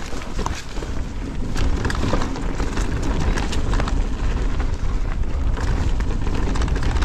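Electric mountain bike riding down a rocky trail: wind buffets the camera microphone with a steady low rumble, while tyres crunch and the bike rattles and knocks over stones in many short sharp clicks.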